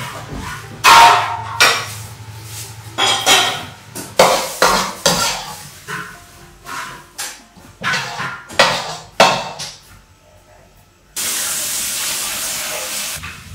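A metal ladle clanking and scraping against a wok as cooked tomato jam is scooped out: a string of sharp knocks and scrapes, then a steady hiss for about two seconds near the end.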